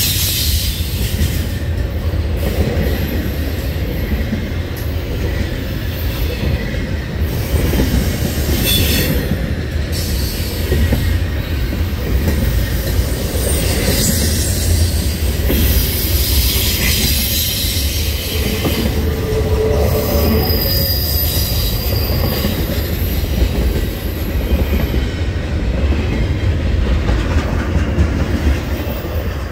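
Double-stack intermodal freight train of container well cars rolling past close by: a steady heavy rumble of steel wheels on rail, with high-pitched wheel squeals coming and going.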